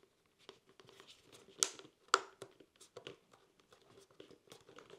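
Sena SRL3 intercom parts and cables being pressed by hand into a Shoei GT-Air 3 helmet's shell and trim: scattered small clicks and rustles of plastic, with two sharper clicks about one and a half and two seconds in.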